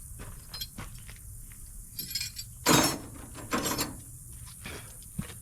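Metal hand tools clinking and rattling as they are handled, with scattered clicks and a few louder clattering rattles around the middle.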